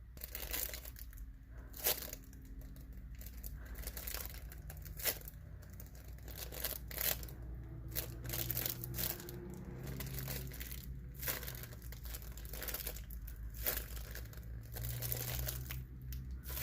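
Irregular crinkling and rustling as a homemade squishy is squeezed and handled in the hands, with a faint steady low hum underneath.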